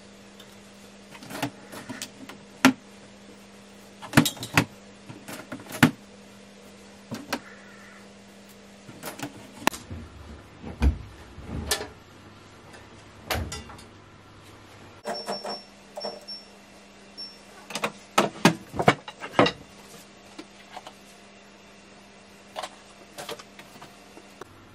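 LG front-loading washing machine being loaded: scattered clicks and knocks as clothes are handled and the drum door is worked, with some duller thumps. About 15 seconds in, four short electronic beeps come from the control panel as its buttons are pressed. A low steady hum runs underneath.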